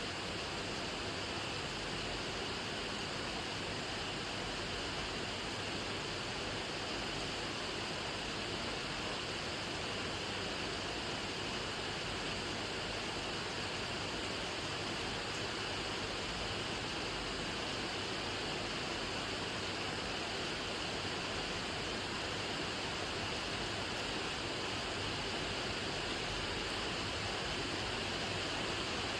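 Steady rain falling: an even, unbroken hiss that holds at the same level throughout.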